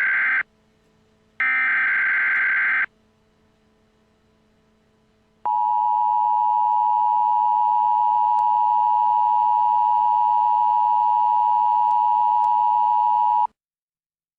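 Emergency Alert System tones for a tornado warning: two short buzzy bursts of the digital SAME header, then after a pause the steady attention tone, held about eight seconds before it cuts off suddenly.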